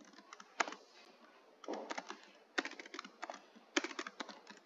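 Typing on a computer keyboard: several short, irregular runs of keystroke clicks.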